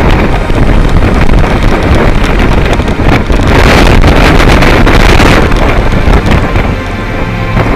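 Gale-force wind buffeting the microphone in loud, uneven gusts, strongest about halfway through.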